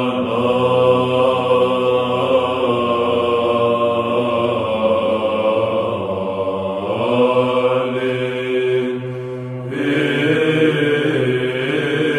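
Byzantine chant by a men's choir: a long, wordless melismatic line sung over a steady held drone note (ison). The melody steps up about seven seconds in, and the voices briefly dip about nine seconds in before coming back.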